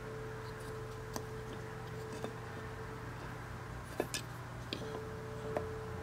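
A handful of small, sharp clicks and taps as a piece of driftwood is handled and set down among lava rocks and moss in a glass terrarium bowl, the loudest pair about four seconds in, over a steady hum.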